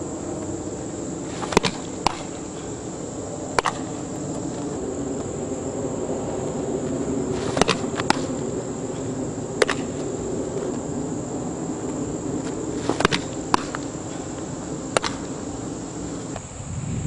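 Sharp cracks of a softball being hit and fielded during infield practice, coming in three sets of three about six seconds apart. A steady high insect drone runs underneath.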